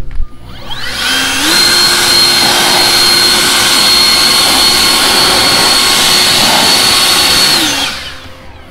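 EGO cordless electric leaf blower blowing off a riding mower. Its fan spins up over about a second and runs steadily with a high whine over a rush of air, then winds down shortly before the end.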